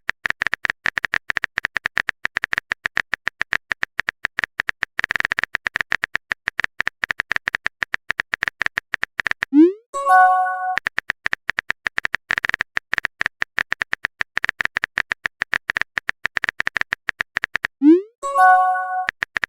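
Phone-keyboard typing clicks, a rapid, uneven run of taps. About ten seconds in, and again near the end, the typing breaks for a short rising swoosh and a brief chime, the sound of a text message being sent.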